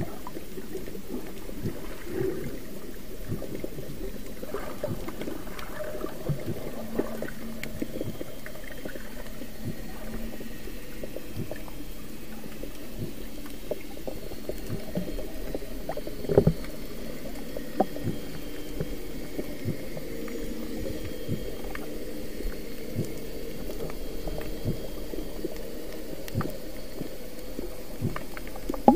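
Underwater sound picked up by an action camera in a waterproof housing: a steady muffled rumble with many small clicks and knocks, a louder thump about sixteen seconds in and a sharp knock near the end.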